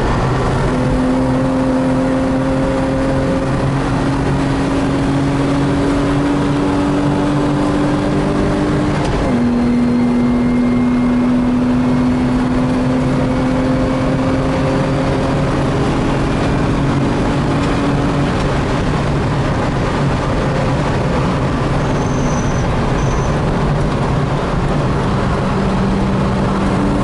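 BMW E28's M50B25 2.5-litre inline-six engine pulling hard, heard from inside the cabin. The engine note climbs steadily, drops sharply with an upshift about nine seconds in, then climbs again. It softens for several seconds in the second half and rises once more near the end.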